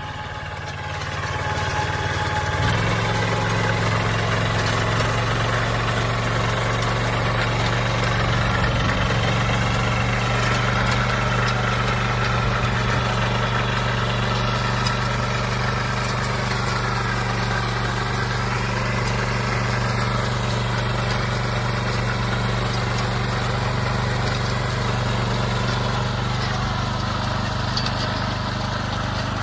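Walk-behind cultivator with a ridging plough attachment, its small engine running steadily while the ridger throws soil into ridges. The engine picks up speed about two seconds in, then holds steady.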